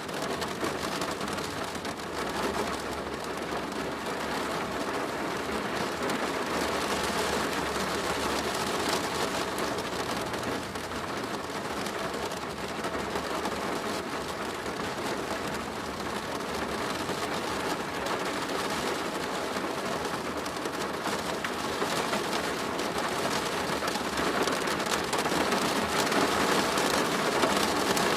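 Steady rain drumming on a plastic roof, a dense patter of drops that grows a little louder near the end.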